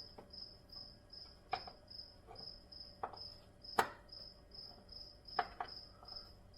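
A cricket chirping steadily, about two to three high chirps a second. Over it come scattered sharp clicks and knocks of a T-handle tool working the intake grate's mounting screws, the loudest a crisp click near the middle.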